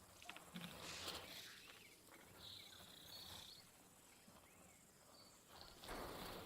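Faint outdoor bush ambience with soft rustles and a brief high call about two and a half seconds in.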